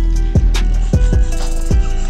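Hip hop background music: deep bass drum hits that drop sharply in pitch, with fast hi-hat ticks and held synth notes.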